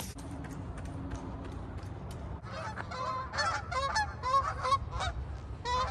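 A flock of geese flying overhead and honking: a quick series of short, repeated honks that starts about halfway through and keeps going to the end, over a low steady background rumble.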